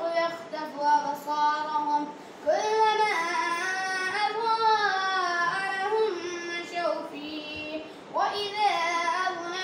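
A child reciting the Qur'an in Arabic, chanted melodically with long held and gliding notes, in three phrases with short pauses about two seconds and eight seconds in.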